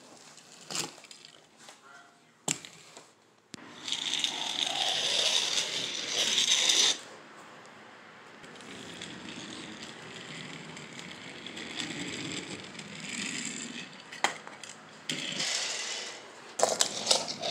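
A small die-cast toy car being handled and run along a wall, making sharp clicks and light rattles. A loud hissing rush runs from about three and a half to seven seconds in, and softer rushing comes later.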